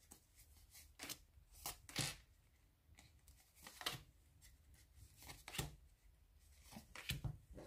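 Playing cards being handled and dealt onto a wooden tabletop: a handful of soft, separate taps and slaps of card on card and card on wood, spread out, with a small cluster near the end.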